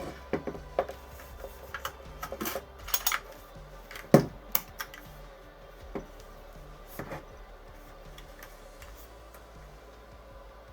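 Irregular clicks, taps and knocks of hard objects being handled, clustered in the first half, with the loudest knock about four seconds in.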